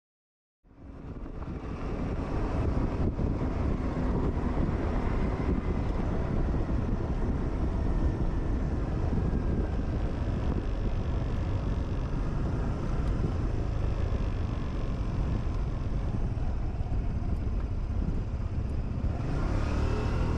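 Riding noise from a Suzuki Burgman 200 scooter under way: a steady rumble of engine, tyres and wind on the microphone, fading in just under a second in.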